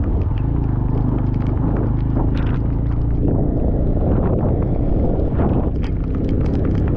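A motor vehicle's engine running at a steady pace with road and wind noise, and scattered light ticks and taps over it.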